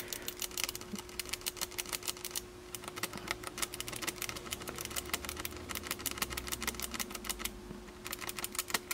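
Small switches on a car CD changer's circuit board clicking rapidly and irregularly as they are pushed in and out with a tool, working contact cleaner through their contacts to loosen built-up crud. The clicking thins out briefly near the end, over a faint steady hum.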